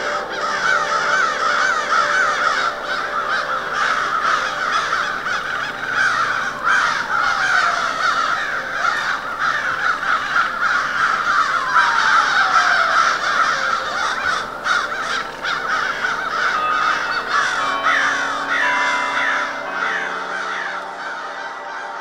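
A large flock of crows cawing all at once in a dense, continuous clamour. Two long falling tones slide down through it, and held notes of ambient music come in over the last few seconds as the calls thin out.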